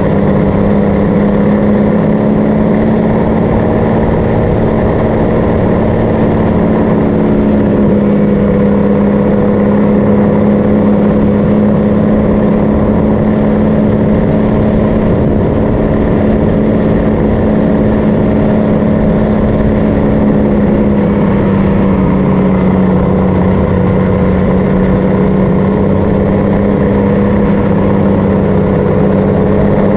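MAN LE 280 B truck's diesel engine running steadily under way, a loud constant drone. The engine note sags slightly about two-thirds of the way through, then rises back.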